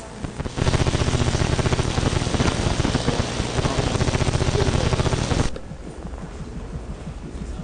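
Experimental sound-design soundtrack: a loud, fast mechanical rattle over a low hum, which starts about half a second in and drops abruptly to a quieter, fast ticking near the end.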